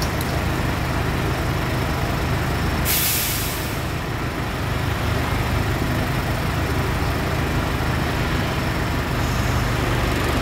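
Large forklift's engine running steadily as it carries a heavy load forward. A short hiss breaks in about three seconds in.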